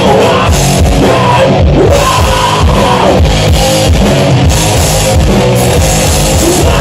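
Live rock band playing loud: electric guitars over bass and a drum kit in a rock and roll number.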